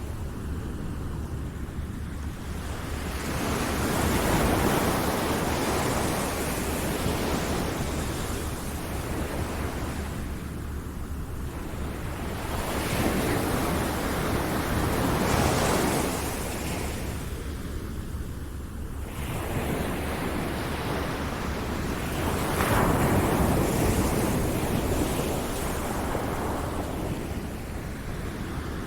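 Ocean waves breaking and washing in, the surf swelling louder three times over a steady hiss.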